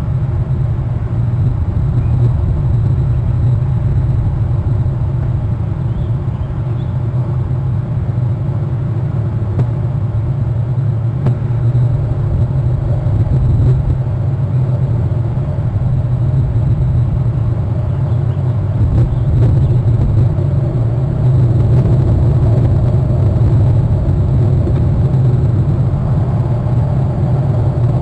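Wind buffeting the nest camera's outdoor microphone, a steady low rumble that grows a little stronger in the second half.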